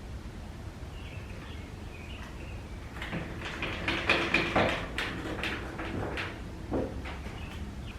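Tools and wood being handled on a workbench during circular-saw setup: a run of sharp knocks and clicks over a few seconds in the middle. A faint high chirping comes before it.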